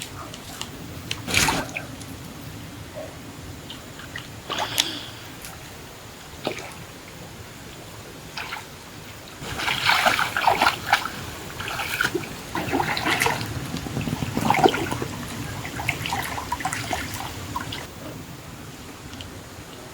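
Water splashing and sloshing: two short sharp splashes in the first few seconds, then a longer stretch of repeated splashing about halfway through.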